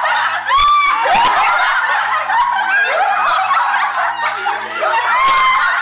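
Several people laughing loudly together in a mocking group laugh, with high sliding whoops among the laughs, over a faint steady electrical hum.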